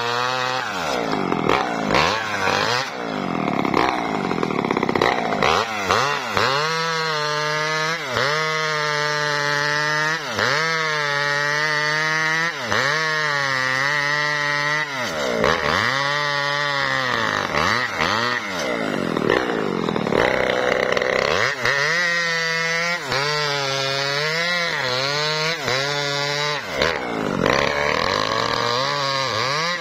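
Maestro mini two-stroke chainsaw cutting through a log, its engine pitch repeatedly sagging as the chain bogs in the wood and climbing again, every second or two.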